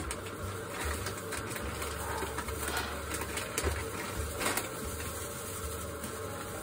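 Faint handling noise at a kitchen sink: a plastic bag rustling, with a few light clicks and a low rumble that comes and goes.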